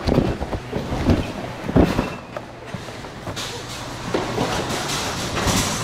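Cardboard boxes and plastic-wrapped packages knocked about and shuffled in a store bin, with a few thumps in the first two seconds. Then a wire shopping cart rolls steadily across a concrete floor.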